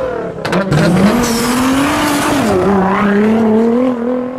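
Sports car engine revving, its pitch climbing, dropping briefly about two and a half seconds in, then climbing again. A few sharp clicks sound near the start.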